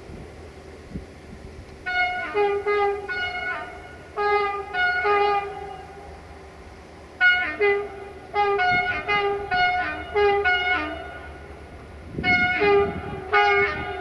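Electroputere 060-DA (LDE 2100) diesel locomotive 65-1300-6 playing its horns in rapid short blasts, hopping between several notes in a tune-like pattern. There are four groups of blasts, starting about two seconds in, with the longest run in the second half.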